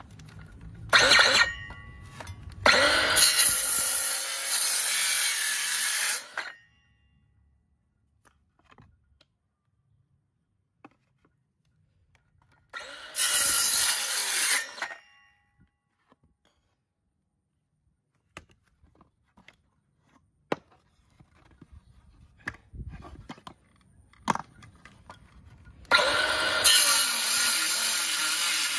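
Bosch 21 V cordless wood-cutting saw run in bursts: a short blip about a second in, then cutting runs of about four seconds and two seconds, and another starting near the end. Quiet gaps between the runs hold a few handling clicks.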